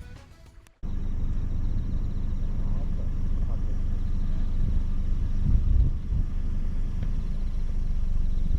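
After a brief near-quiet gap, a steady low rumble cuts in abruptly about a second in and runs on, with a slight swell near the middle.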